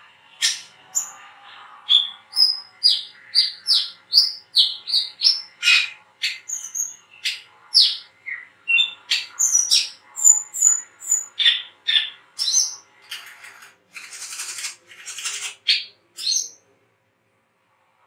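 Caged brown-throated sunbird (wiceh) singing its rapid 'ngriwik' twitter: a fast string of sharp, high chirps, many of them falling in pitch, about two or three a second. Near the end the chirping gives way to a brief hiss before the sound stops.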